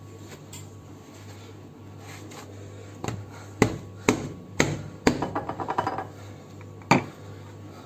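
Lumps of sticky rice-cake dough slapped and pressed down by hand on a countertop: after a quiet start, a series of sharp thuds about half a second apart, a quick rattling run of smaller knocks, and one last thud near the end, over a steady low hum.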